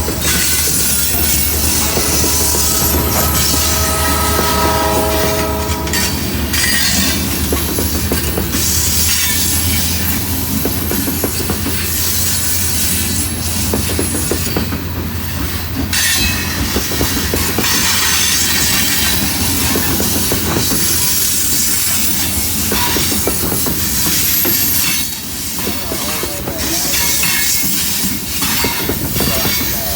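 Loaded freight rock train rolling past with a steady low drone, wheels clicking over the rail joints and high wheel squeal from the cars. A few seconds in, a steady chord-like tone sounds for about two seconds.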